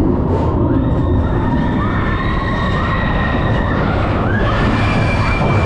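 Expedition Everest roller coaster train running on its track: a loud, steady rumble with high squealing whines that rise and fall over and over.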